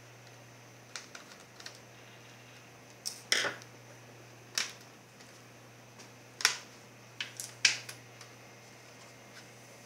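Irregular clicks and knocks from an Acer Aspire One ZG5 netbook's casing and parts being handled during disassembly, with a few louder knocks among the light clicks.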